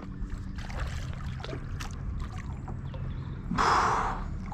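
Water lapping around the kayak, then a short splash about three and a half seconds in as the hooked small wels catfish thrashes at the surface beside the boat.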